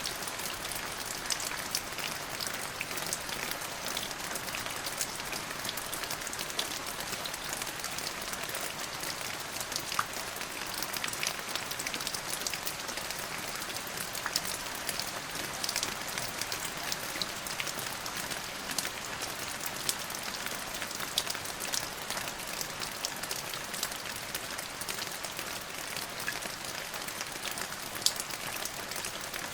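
Steady rain falling, with many sharp individual drops striking a surface throughout.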